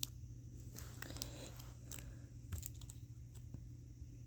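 Faint scattered clicks and scrapes of small plastic figure parts being handled while the feet are worked loose from the legs.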